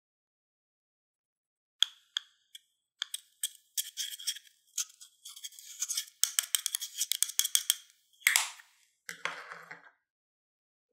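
A metal pick scraping and breaking up a pressed powder eyeshadow in its compact: sharp clicks and gritty scratching starting about two seconds in, thickening into a dense crackle in the middle.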